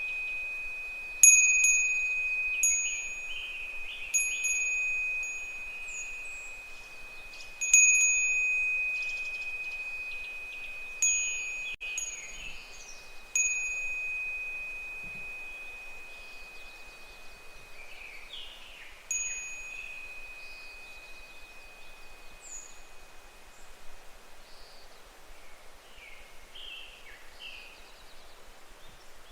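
Japanese fūrin wind bell struck by its clapper in the breeze, about eight times over the first twenty seconds, each strike ringing a clear, high tone that fades slowly. After that the bell stops, leaving faint short chirps over a steady outdoor hiss.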